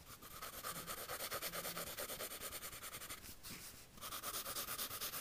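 Pencil scratching on lined notebook paper in rapid back-and-forth sketching strokes, in two runs with a short pause about three seconds in.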